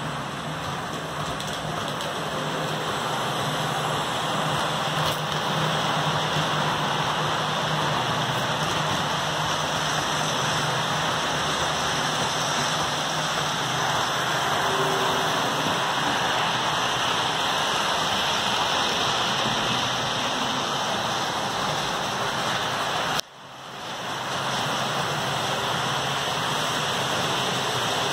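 HO scale model freight train running along the track: a steady rolling noise from the wheels and locomotive motor. Near the end it cuts out suddenly and swells back within about a second.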